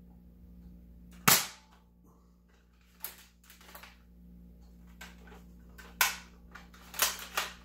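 Spring-powered toy Nerf blaster being primed and fired: a series of sharp plastic clacks and pops, the loudest about a second in, with several more spread through the rest.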